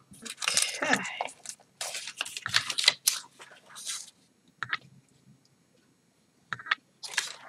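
Patterned scrapbook paper rustling and crinkling as it is picked up and handled, in several bursts over the first four seconds, then a couple of faint taps.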